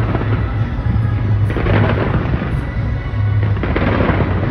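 Skyscraper fireworks display going off: a continuous deep rumble of booms, with bursts of crackling about every two seconds, over music in the background.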